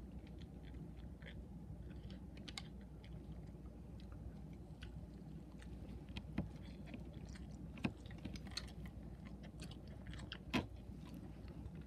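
People chewing food with small wet mouth clicks throughout, and three sharper clicks in the second half.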